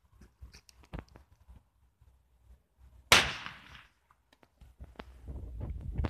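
A single firecracker bang about three seconds in: a sharp crack that dies away in under a second. Before and after it come small clicks of footsteps and phone handling, growing busier near the end.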